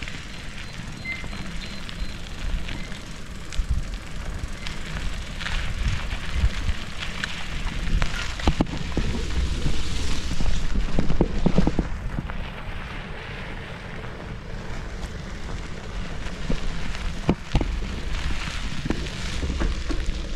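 Bicycle riding over rough concrete and dirt road: tyre rumble and wind buffeting the microphone, with scattered clicks and rattles from bumps.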